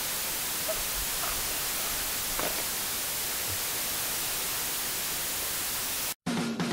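Steady hiss of recording noise with only a few faint small sounds. It cuts off about six seconds in, and guitar rock music starts just after.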